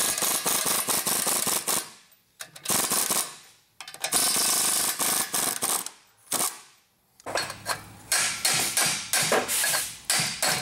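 Impact wrench hammering on rusty exhaust coupler bolts, in several bursts of rapid impacts with short pauses between them. The last few seconds are sparser, separate clicks.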